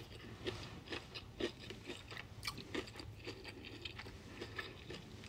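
Quiet close-up chewing of crispy fried chicken wings, with many short crunches and clicks scattered through the chewing.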